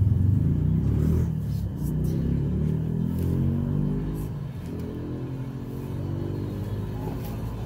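A motor running, its pitch sliding up and down, loudest at the start and easing off.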